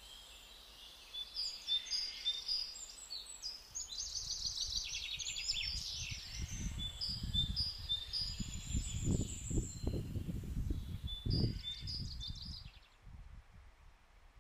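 Songbirds singing outdoors in short, repeated chirping phrases, with irregular low rumbling in the middle. Both fade out near the end.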